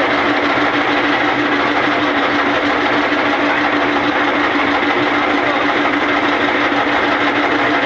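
Motorboat engine running steadily at a constant speed, a loud, even drone with a fast, regular beat underneath.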